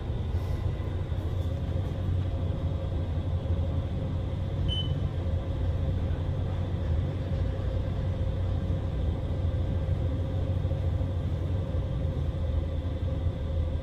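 Otis traction elevator car travelling up its hoistway on an express run: a steady low rumble of ride noise inside the cab, with a faint steady hum over it.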